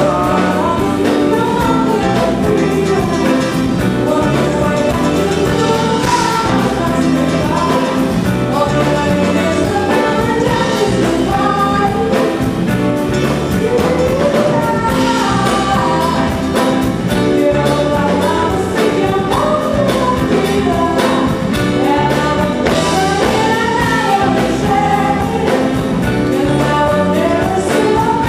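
Live band performance of a jazzy soul song: a woman singing lead into a microphone over electric guitar, keyboards and drums keeping a steady beat.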